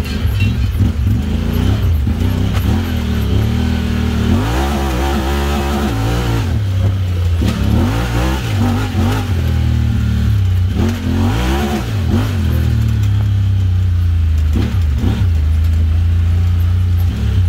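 Honda Talon X side-by-side's 999 cc parallel-twin engine running through an aftermarket Evo Performance exhaust, the revs rising and falling several times as the throttle is worked, with a steadier drone at the start and near the end.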